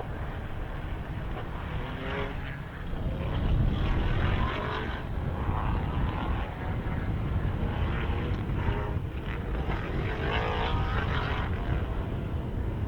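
Endurance race cars' engines droning around the circuit, with individual cars' engine notes rising and falling as they pass. The loudest pass comes about three and a half seconds in.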